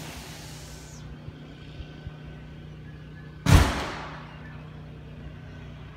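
A steady low hum with a single loud thump about three and a half seconds in, which dies away within a second.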